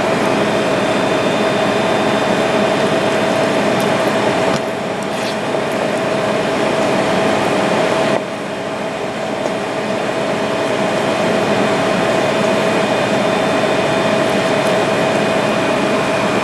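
Steady whooshing hum of a ventilation fan or air-conditioning unit with a steady whining tone, dipping slightly in level twice early on.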